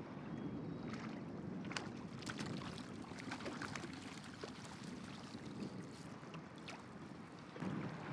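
Flowing river water, with sharp splashes and water slaps as a netted fish thrashes in a landing net at the surface, most of them in the first half.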